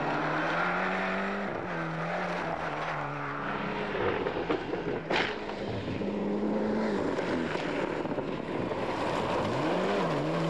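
Rally car engines revving hard on a gravel stage, the engine note rising and dropping with throttle and gear changes over the rasp of loose gravel. There is one sharp crack about five seconds in.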